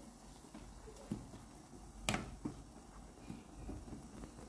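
Metal potato masher pressing soft cooked apples in a saucepan, making apple purée: a few faint knocks, with one sharper clink about two seconds in.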